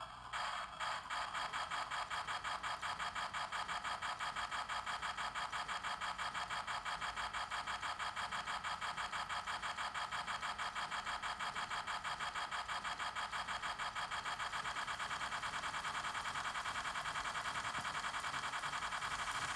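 O-scale Lionel BR-50 model steam locomotive running in place on its display track: a rapid, even beat of chuffs that starts about half a second in and quickens gradually as the drivers speed up.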